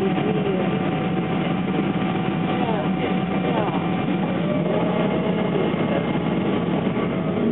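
Steady cabin noise of a Boeing 777 airliner descending on approach to land: a constant low engine and airflow rumble with a faint steady whine. Faint voices sound through it now and then.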